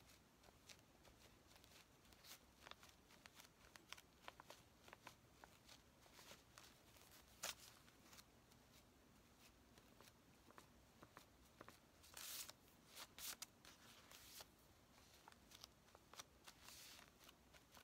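Very quiet handling sounds of papercraft work: faint rustles of paper and fabric and small clicks on a desk. A sharper click comes about seven seconds in, and a louder rustle follows around twelve seconds in.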